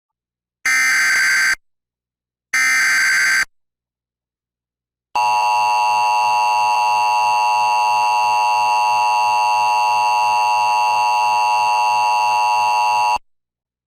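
Emergency Alert System broadcast tones announcing a severe thunderstorm warning: two bursts of warbling SAME header data, each about a second long, then the steady two-tone EAS attention signal held for about eight seconds, which cuts off suddenly.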